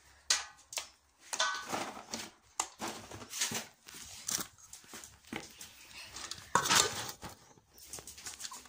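A dog whimpering in short bursts, amid clicks and rustles from kibble bowls and a dog-food bag being handled, with one loud rustle about two-thirds of the way through.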